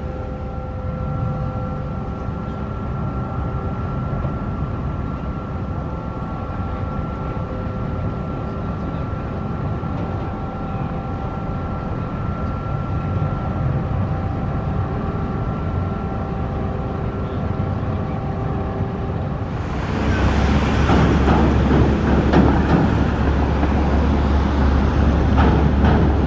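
Low, steady drone of a car ferry's engines carried across the water, with a few faint steady hum tones. About 20 seconds in it gives way suddenly to louder road noise of vehicles passing at the ferry terminal, with some rattling clicks.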